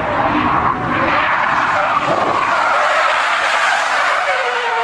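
Car tyres screeching on asphalt as a car drifts sideways at speed, one long continuous skid, with a higher squealing tone coming in near the end.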